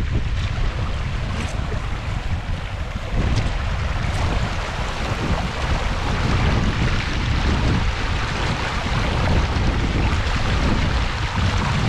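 Strong wind blowing across open fell country and buffeting the microphone: a steady rumble with a dense rushing hiss over it.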